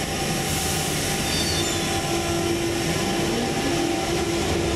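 London Underground 1992-stock tube train at the platform, beginning to pull out: a steady rumble and hiss, with a hum tone coming in about a second and a half in and a faint brief high squeal just before it.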